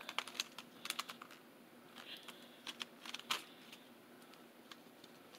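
Light, irregular clicks and rattles of a curling iron and its cord being handled and unwound, with the loudest click a little past the middle.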